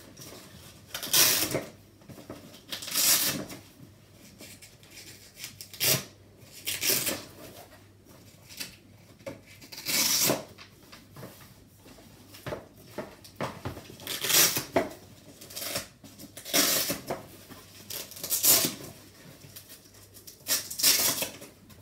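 Velcro straps of a Bugaboo Donkey 3 bassinet's fabric being ripped open one after another: a series of short tearing rips every two seconds or so, with fabric handling noise between them.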